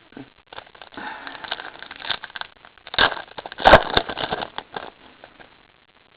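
Basketball trading cards and their foil pack being handled, a crackly rustling and scraping with a few sharp clicks, loudest in the middle.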